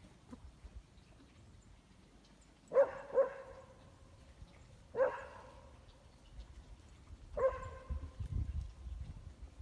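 Black goldendoodle barking: two quick barks about three seconds in, then two single barks a couple of seconds apart.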